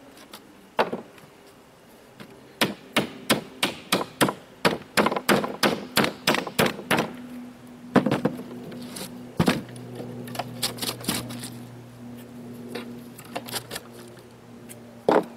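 Hand tools tapping and knocking on a plywood board while old staples are worked out: a quick run of sharp taps, about three a second for several seconds, then scattered louder knocks. A steady low hum comes in about eight seconds in.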